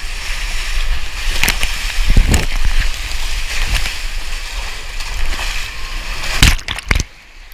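Water rushing down an open fibreglass water slide as a rider slides down it, with several knocks as the rider and camera bump the slide walls. Near the end comes a splash into the pool, and then the sound drops off sharply.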